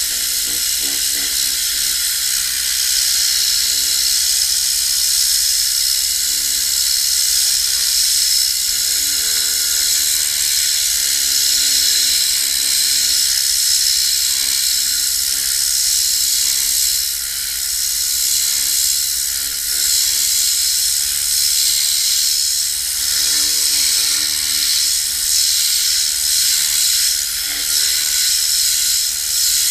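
Tornador air-powered cleaning gun blasting compressed air and cleaning solution into car carpet: a loud, steady hiss.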